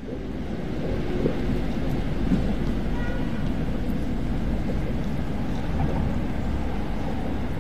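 Steady low rumbling outdoor noise, picked up by a handheld phone's microphone while walking.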